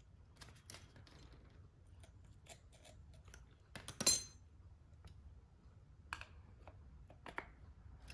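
Small metallic clicks and light taps of thin air-conditioner clutch shims being handled and fitted onto the compressor shaft, with one sharper metal clink that rings briefly about four seconds in.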